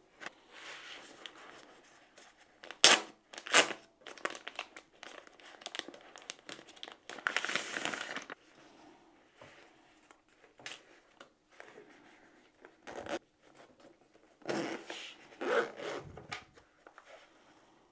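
Paper packaging crinkling and rustling as it is pulled off a soft carrying case, with a few sharp clicks and knocks from handling. The longest and loudest crinkle comes about seven seconds in and lasts about a second.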